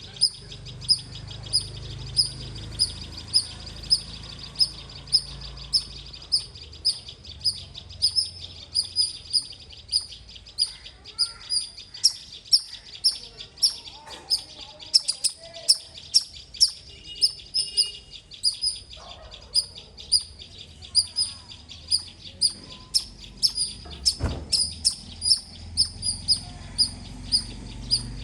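Squirrel chirping: a long, steady run of short, sharp, high-pitched chirps, about two to three a second.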